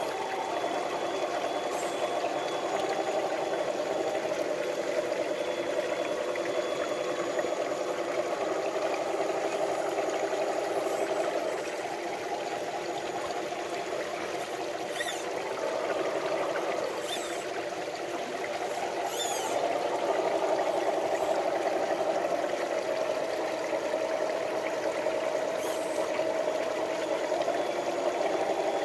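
Electric motors and gearboxes of Traxxas TRX-4 scale crawler trucks whining at low speed as they crawl over rock, the pitch shifting with the throttle, over a trickling shallow stream. A few short sharp ticks.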